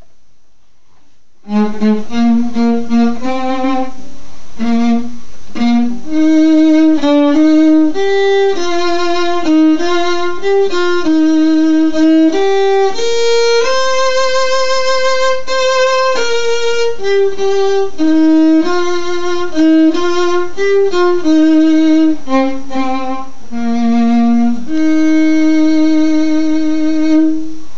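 Solo violin playing a slow melody one note at a time, starting about a second and a half in. A long held note with vibrato sits in the middle, and a long lower note closes the passage near the end.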